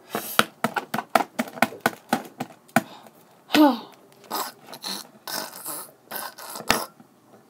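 Small plastic toy figures knocked and clacked together in a pretend fight, with rapid clicks at about five a second at first, then scuffling and scraping and one sharp knock near the end. A short falling vocal squeal about three and a half seconds in.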